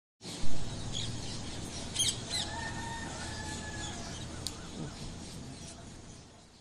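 Birds chirping and calling over a steady background hiss, with a short loud sound about half a second in and one longer held call in the middle; the whole fades out near the end.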